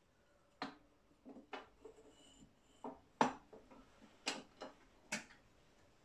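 Irregular sharp metallic clicks and knocks, about eight in all, from crucible tongs and a crucible of molten brass striking a small electric melting furnace and its lid during a pour.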